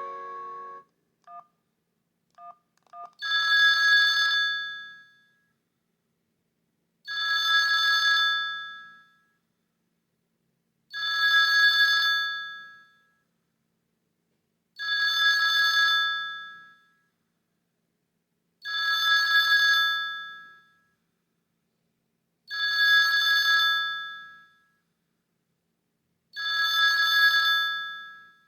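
Sony Ericsson D750i mobile phone playing a preloaded ring-style ringtone through its loudspeaker: an imitation telephone ring, about two seconds of ringing repeating roughly every four seconds, seven times. It is preceded by the last note of a melody and three short beeps.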